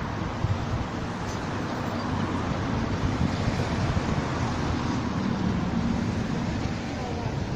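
Wind buffeting the microphone: a steady, uneven rush with no distinct events.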